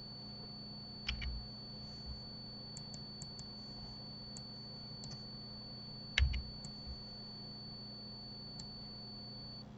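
Scattered computer mouse and keyboard clicks, a few sharp ones with the loudest about six seconds in and several light ticks between, over a faint steady high-pitched whine and hum.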